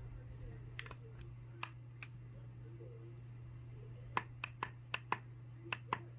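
Buttons on a La Crosse 602-249 alarm clock being pressed, a series of short sharp clicks: a few spaced out, then a quicker run of about seven near the end.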